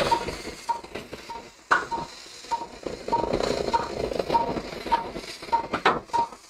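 Patient monitor beeping with each heartbeat: a short, steady, high beep about every 0.6 s, roughly 100 a minute. Over it come sharp clicks and clatter from handling the endoscopic instruments as a clip is applied.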